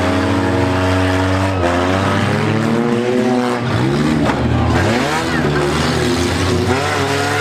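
Engines of several compact demolition-derby cars revving, rising and falling in pitch, with a few sharp knocks.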